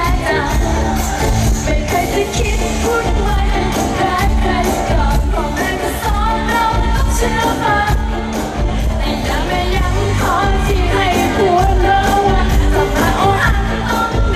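Live pop music played loud through a concert PA, heard from within the audience. Vocalists sing into microphones over a heavy, steady beat.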